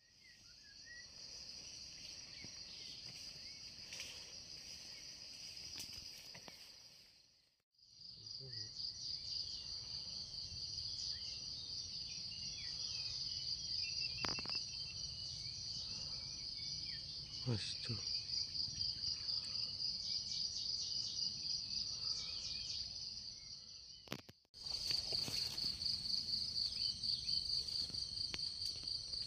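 Forest insects keeping up a steady, high-pitched chorus, with a fast fine pulse. The chorus cuts off briefly twice.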